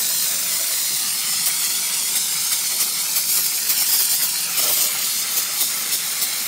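Aerosol can of Sprayon EL2302 electrical contact cleaner spraying in one long continuous hiss over an amplifier's circuit boards, cutting off abruptly at the end.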